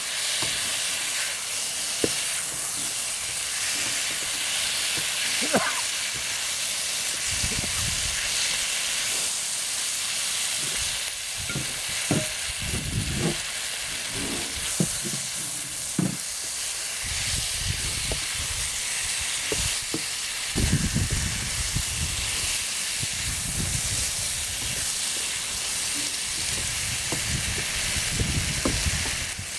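Octopus in curry sauce sizzling steadily in a pan as the sauce cooks down and thickens, with a utensil stirring and scraping the pan now and then.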